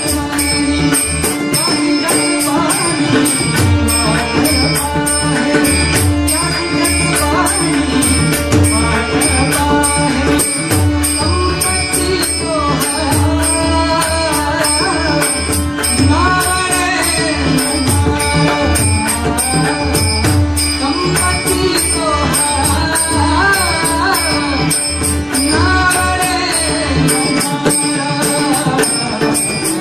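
Marathi devotional abhang sung by a male bhajan singer (buwa) in long, gliding phrases over a steady drone, with drum and hand cymbals keeping an even beat.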